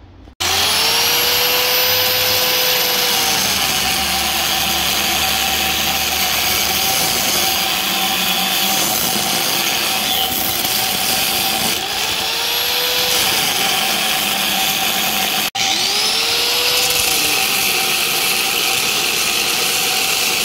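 Electric angle grinder with a cut-off wheel cutting through a steel bracket, its motor whine sagging each time the wheel bites into the metal and rising again as it frees up. The grinding starts abruptly about half a second in and breaks off for a moment near three-quarters of the way through.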